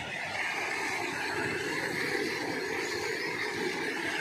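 Old diesel engine running steadily, driving a belt-driven tube-well pump, with water gushing out of the discharge pipe in a constant rushing din.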